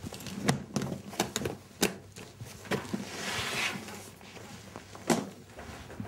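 Hard-shell suitcase being handled: its lid shut and fastened in a string of knocks and clicks, with a brief scraping rustle about three seconds in and a few knocks near the end as it is carried off.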